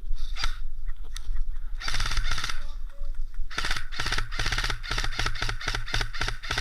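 Airsoft rifle firing on full auto: a short burst of rapid shots about two seconds in, then a longer stretch of rapid fire from about halfway through.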